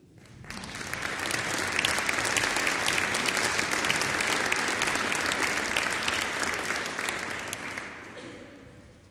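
Concert audience applauding, many hands clapping at once. The applause swells over the first second or two, holds steady, and dies away near the end.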